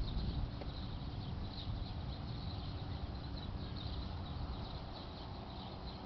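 Distant thunderstorm rumble, low and steady, easing slightly toward the end, with faint high chirping above it.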